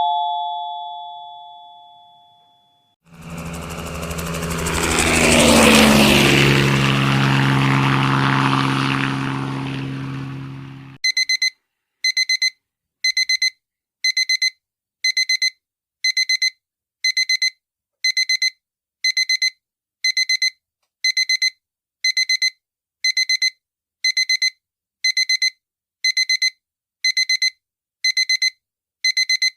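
Digital alarm clock beeping: short high electronic double beeps repeated about once a second through the second half. Before it, a doorbell chime dies away, then comes an eight-second mechanical sound, a low steady hum under a hiss that sweeps up and fades.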